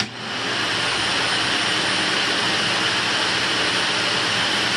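1980 Electrolux Olympia One 1401-B vacuum cleaner motor switched on with a click, spinning up to full speed within a fraction of a second and running steadily. Its spin-up is quick and clean and it runs fairly smoothly, on motor bearings that have likely had no service since 1980.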